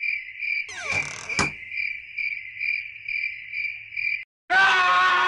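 Crickets chirping: an even, high trill pulsing about two to three times a second, with a brief whoosh and a sharp click about a second in. The chirping cuts off suddenly about four seconds in.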